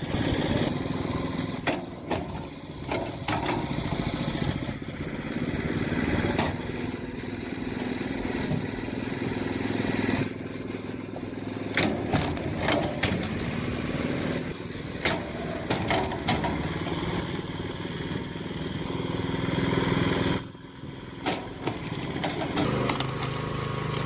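Small engine of a log splitter running steadily, with repeated sharp knocks and cracks over it. The engine sound drops briefly about twenty seconds in, then picks up again.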